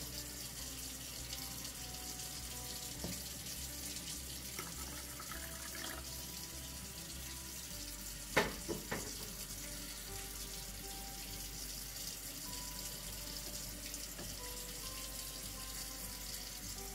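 Tap running steadily, pouring a thin stream of water into a plastic cup, with a couple of sharp knocks about halfway through.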